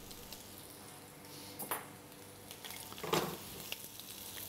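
Floured turkey cutlet sizzling faintly in a frying pan with a little olive oil over a brisk gas flame. Two short, louder sounds break in, about one and a half and three seconds in.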